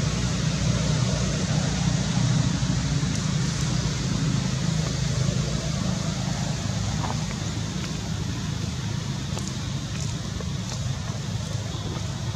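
Steady outdoor background noise: an even low rumble with a hiss above it, with a few faint ticks in the second half.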